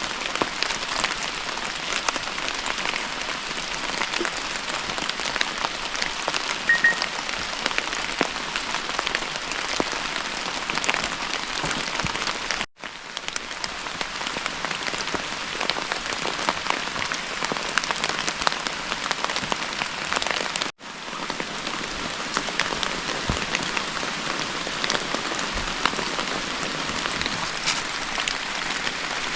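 Rain pattering steadily on a surface, a dense spread of many small drop ticks, broken by two brief dropouts about halfway through and about two-thirds of the way through.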